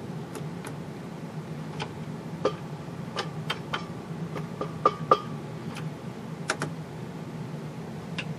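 Plastic nut-driver handle tapping the cloth-covered glass neck of a CRT: about fifteen light, irregular taps, some with a brief ringing, over a steady low hum. It is an attempt to jolt an open cathode's broken weld back together.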